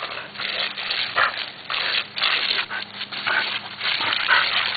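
Garden hose spray hissing unevenly as a Border Collie bites and snaps at the water stream, with the dog giving three short cries.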